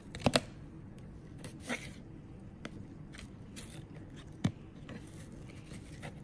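Plastic fork clicking and scraping against a plate while pulling apart a cooked chicken wing: two sharp clicks close together at the start, a few fainter ticks, and another sharp click about four and a half seconds in.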